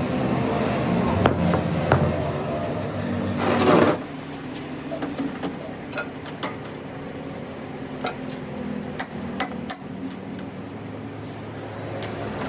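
An engine running steadily, ending about four seconds in with a short, loud burst of noise. After that come scattered metal knocks and clinks over a fainter hum.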